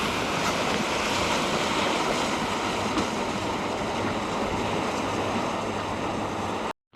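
Steady rushing noise of wind buffeting the microphone, cut off suddenly near the end.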